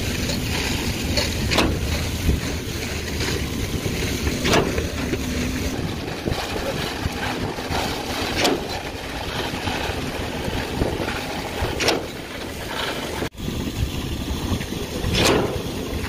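CIFA truck-mounted concrete boom pump running under load, a steady engine drone with a sharp knock about every three to four seconds, five in all, as the pump cycles its strokes.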